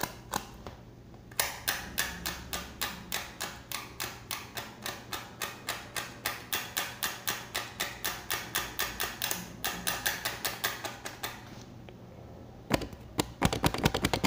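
Fingers tapping on the plastic-wrapped back of a new smartphone: a steady run of light clicks, a little over three a second, then a short quicker flurry of louder taps near the end.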